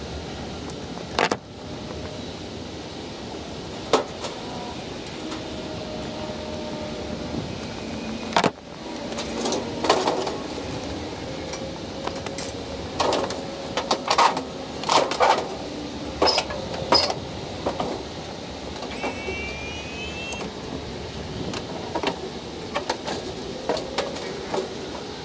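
Irregular knocks, thumps and metallic clanks as a heavy washer-dryer combo is wrestled and loaded, over steady background noise, with the densest run of clanks in the middle.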